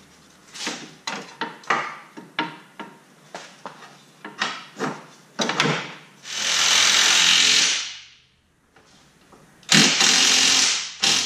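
A run of sharp knocks and clicks as parts are handled at the wheel hub, then a handheld cordless power tool runs in two bursts of a second or two each, with a short pause between.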